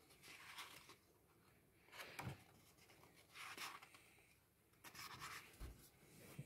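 Pages of a paperback comic and puzzle book being turned by hand: four or five soft paper rustles about a second and a half apart, with faint dull thumps about two seconds in and near the end.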